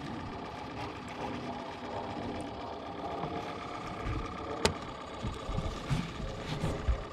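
Small boat motor running steadily with a whine. There is a sharp click about four and a half seconds in and a few low knocks near the end.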